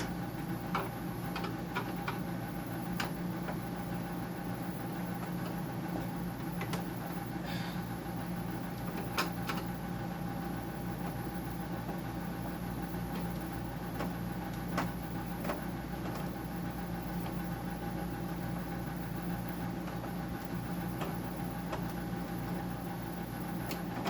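Steady mechanical hum of a running machine, with scattered light clicks and taps from plastic dehumidifier parts and screws being handled during disassembly.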